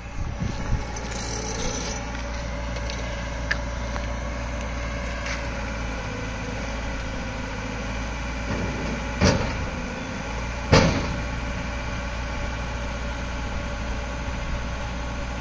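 Diesel engine of a Hyundai 140LC-7 crawler excavator running steadily, with two loud knocks about a second and a half apart near the middle.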